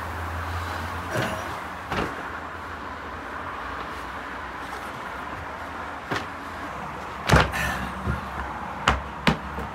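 Steady hiss and low hum from a steaming samsa tandoor as its blanket covers are handled, broken by a handful of sharp knocks and thumps, the loudest about seven seconds in.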